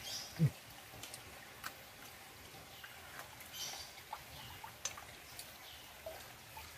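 Faint scattered clicks, ticks and short scrapes of a knife and small wader fish being handled and cleaned on wet concrete. A soft low thump comes about half a second in.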